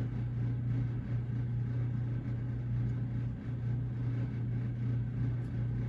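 Steady low hum with a faint hiss underneath, the constant background noise of a small room; no distinct events.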